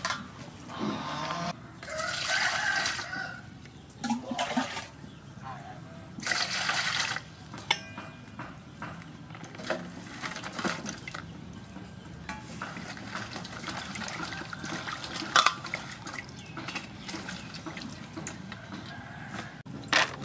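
Water sloshing and splashing in an aluminium basin as vegetables are washed by hand, with a couple of louder splashes in the first several seconds, then dripping and small knocks as they are lifted out into a bamboo basket.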